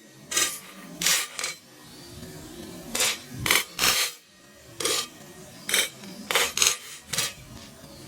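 Popcorn kernels popping in a covered metal pan: about a dozen sharp pops with a metallic clink, spaced irregularly.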